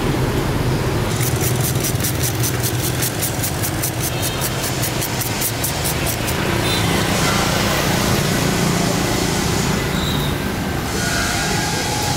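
Road traffic with engines running steadily. A fast high ticking, about ten a second, runs from about a second in to about six and a half seconds in.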